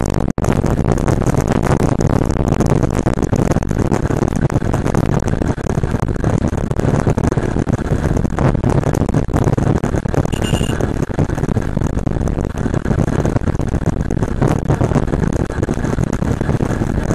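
Wind rushing over the microphone of a camera mounted on a moving motorcycle, with the motorcycle's engine running underneath, as the bike cruises along the road. A brief high squeak about ten seconds in.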